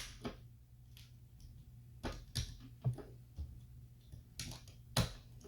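LEGO pieces clicked into place by hand: a few separate sharp plastic clicks, the loudest about five seconds in, as tiles are pressed onto the build.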